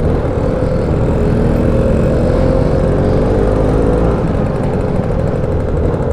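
Motor scooter engine running at riding speed, its pitch wavering slightly, with heavy wind rumble on the microphone.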